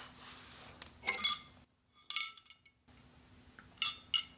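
Steel differential parts and tools clinking: several light metallic clinks with a short ring, as the axle output flange is worked off the differential housing and handled.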